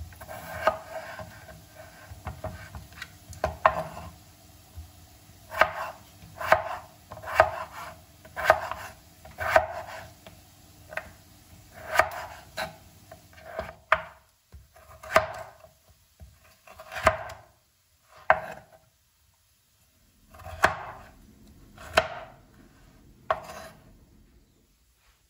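Kitchen knife cutting food on a cutting board: single strokes about one a second, spacing out in the second half and stopping shortly before the end.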